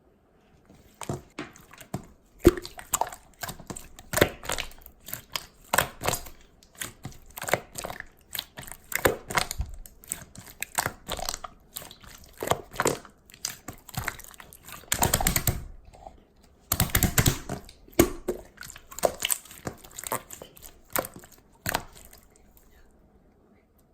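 Slime being squished, stretched and folded by hand, making irregular sticky crackling and popping clicks, with louder bursts of squelching about two-thirds of the way through.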